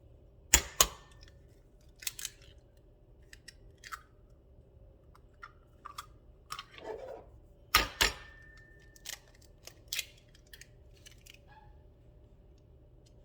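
Dishes and kitchen utensils knocking and clicking. There are two loud double knocks, one near the start and one about 8 seconds in, each leaving a brief faint ring, with lighter clicks and taps between them.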